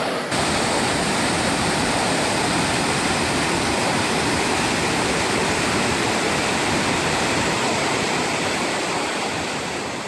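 A waterfall about 100 feet tall running heavily, its white water crashing down over rock cascades close by in a steady, full rush. It eases a little near the end.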